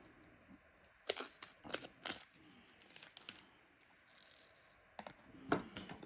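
Light, scattered plastic clicks and taps of a diamond-painting drill pen and its small resin drills as they are picked from a plastic tray and pressed onto the magnets.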